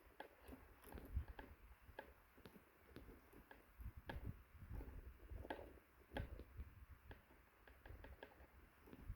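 Near silence, with faint, irregular ticks and taps scattered throughout.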